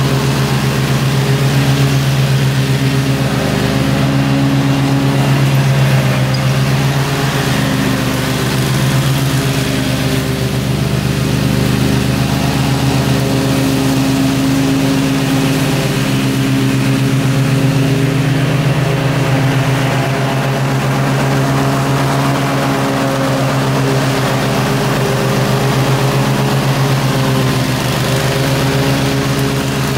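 Gravely zero-turn riding mower running steadily with its blades engaged, cutting thick grass. The engine hum holds an even pitch and swells slightly in loudness as the mower moves.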